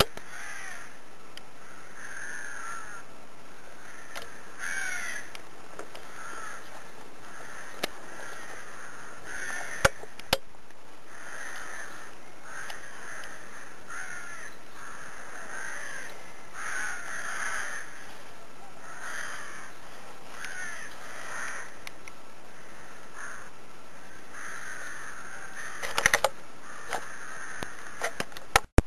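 Birds calling over and over, short harsh calls about once a second, with a few sharp clicks around ten seconds in and a cluster near the end.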